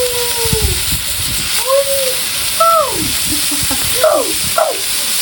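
Lamb ribs sizzling on a cast-iron cauldron lid over a strong fire: a steady frying hiss.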